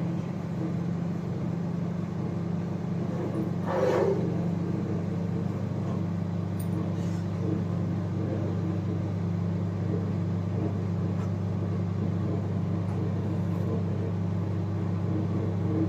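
IFB 30FRC2 microwave oven running in convection mode at 200 °C, a steady low hum while it heats. A brief knock about four seconds in.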